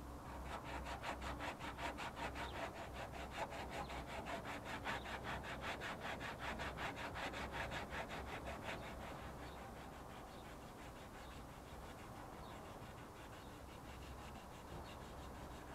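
Sandpaper rubbed by hand in quick, even back-and-forth strokes over cured body filler on a car's front fender. The strokes are loudest for the first half and go on more softly after about nine seconds.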